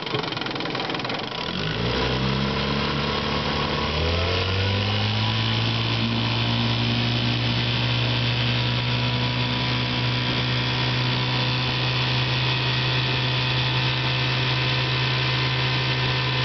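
1967 Johnson 6 hp two-cylinder two-stroke outboard motor, freshly tuned up, speeding up from idle in two steps, about a second and a half in and again about four seconds in. It then runs steadily at speed, pushing the boat.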